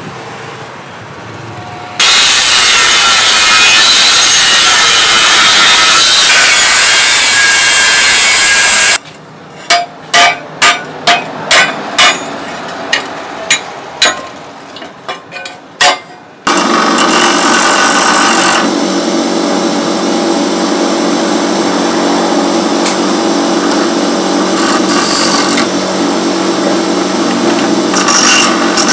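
Metalworking on small sheet-steel parts. A power tool cuts or grinds steel with a loud, steady noise for about seven seconds. Then about ten hammer blows land on a small metal piece on a steel block, followed by a bench grinder's wheel running steadily as a piece held in pliers is ground against it.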